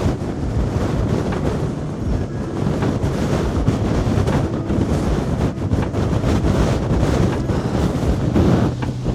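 Strong wind buffeting the microphone: a loud, gusty low rumble that rises and falls unevenly.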